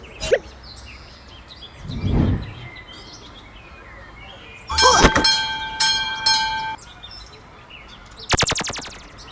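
A string of cartoon sound effects over faint bird chirps. A brief click comes first, then a low whoosh swells and fades, then a loud hit leaves a ringing tone that holds for about two seconds. Near the end comes a fast rattle of clicks.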